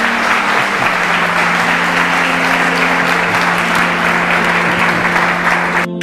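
Audience applauding, with background music holding steady low notes underneath. The applause cuts off suddenly near the end, leaving the music.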